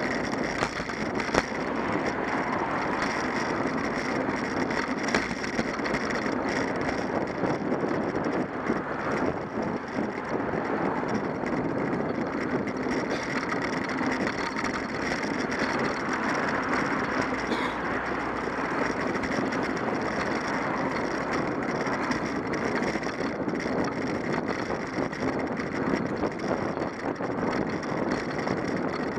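Steady rumble and wind noise of a bicycle riding along a paved path, picked up by a camera mounted on the bike, with car traffic running alongside.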